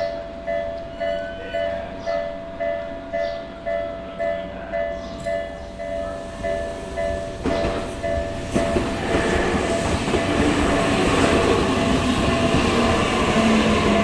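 Japanese level-crossing warning bell ringing a steady ding-ding, about two strikes a second. From about halfway through, a Tokyu Ikegami Line electric train approaches and runs into the crossing, its rumble of wheels and motors growing louder than the bell.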